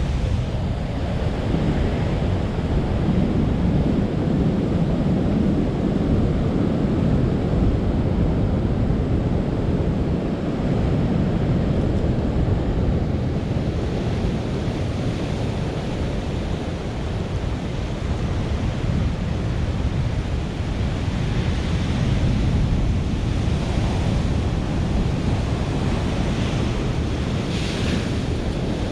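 Big ocean waves breaking in a steady rush of heavy surf, with wind buffeting the microphone.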